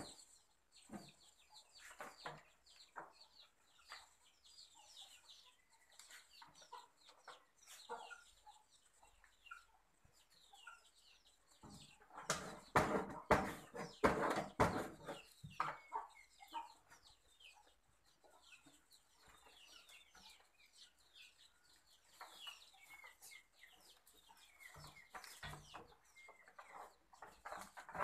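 Chickens clucking, loudest and busiest about twelve to sixteen seconds in, with short high chirps scattered throughout.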